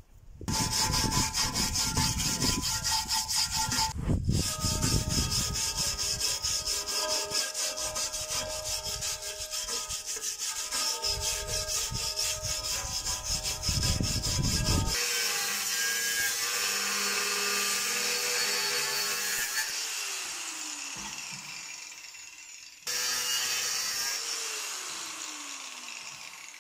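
Hand wire brush scrubbing rust off the thin sheet steel of an old barbecue with quick back-and-forth strokes, the sheet metal ringing under them. About halfway through the scraping turns smoother and fades away, then starts again abruptly and fades once more.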